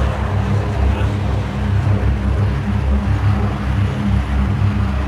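Road traffic led by a heavy truck's engine: a loud, low, steady drone.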